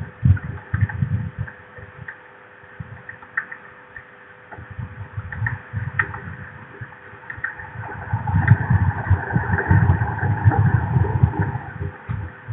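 Wind buffeting an outdoor nest-camera microphone in gusts, a low rumble that eases off in the first seconds and builds again from about eight seconds in, over a steady electrical hum.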